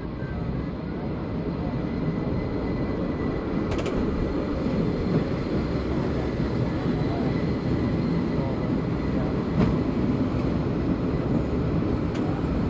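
San Francisco cable car running along its track, heard from the outside step: a steady low rumble with a few sharp clicks.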